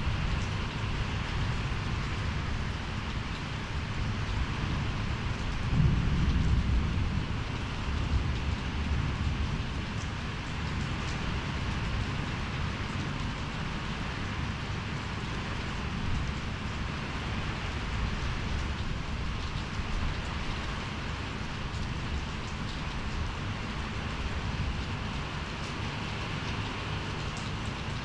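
Rain pouring steadily during a storm, with a low rumble swelling about six seconds in.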